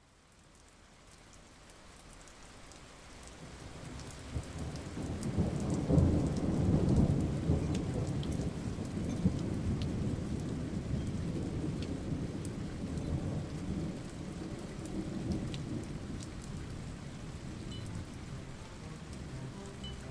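Thunderstorm: rain hissing with a rolling rumble of thunder, fading in from silence, swelling to its loudest about six seconds in, then settling into steady rain with scattered drop ticks.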